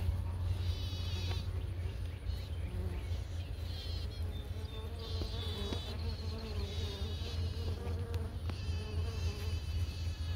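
Honey bees buzzing around an open hive, the buzz coming and going in short spells, with one bee's wavering drone close by for several seconds in the middle. A steady low hum runs underneath.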